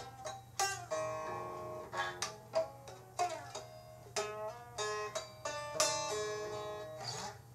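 A plucked string instrument playing a run of single notes, each struck sharply and left to ring and fade, several a second, over a steady low hum.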